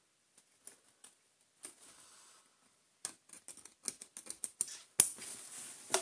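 Pliers gripping and twisting a metal zip pull stuck fast with corrosion on a cloth vacuum-cleaner bag: small metallic clicks and scrapes, thicker from about three seconds in, with one sharp, louder click about five seconds in.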